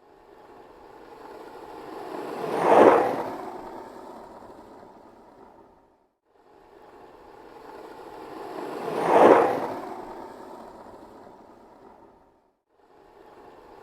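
Skateboard wheels rolling past on pavement: a rolling noise that grows to a peak and fades away, twice, with a short gap of silence after each pass and a third pass building near the end.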